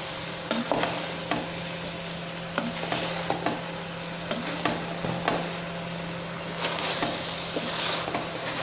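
Wooden spatula stirring mushrooms in a stainless steel pot, with irregular knocks and scrapes against the pot, over a steady hiss of the food cooking and a steady low hum.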